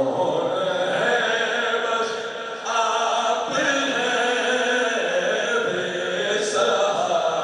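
Devotional naat chanting: sustained, melodic vocal chant of a naat recitation, held on long notes with only brief breaks.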